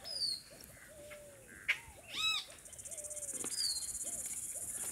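Birds calling: a string of short, low, arched coos and one sharper call about two seconds in. An insect's high, pulsing buzz comes in about halfway and grows louder.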